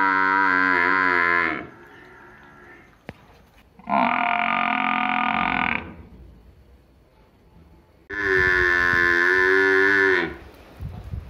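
Water buffaloes, a calf and an adult, calling in turn: three long moos of about two seconds each, the first already under way at the start, with short pauses between.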